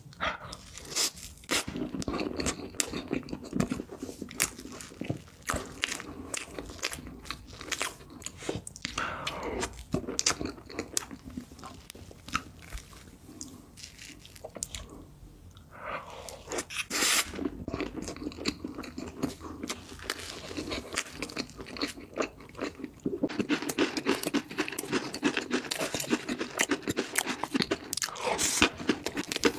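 A person eating cake in big bites: wet chewing and smacking with crunchy bits, and chopsticks digging into the cake. It gets louder and busier in the last several seconds, as chocolate cake topped with chocolate balls is eaten.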